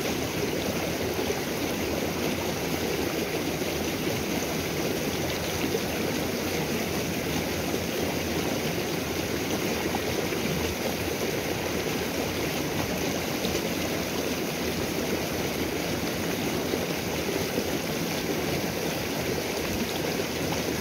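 Small rocky stream rushing steadily over a shallow riffle, an even, unbroken flowing-water noise.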